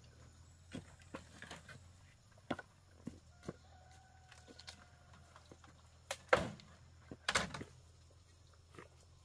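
Chickens calling faintly, among scattered light knocks and taps. Two louder, sharper sounds come about six and seven seconds in.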